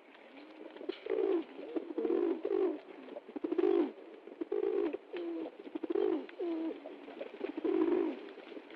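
Feral pigeon (rock dove) cooing: a steady run of short, low coos, one or two a second.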